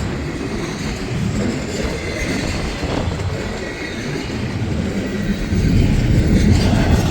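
Cars of a slow CSX intermodal freight train rolling past: a steady rumble of steel wheels on the rails, growing louder near the end.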